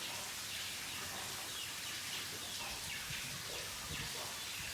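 Water running steadily from an opened pipe, filling the cattle's drinking water.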